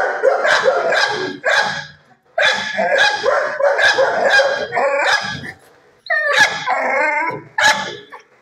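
Dogs barking in a shelter kennel, about two barks a second in runs with brief pauses.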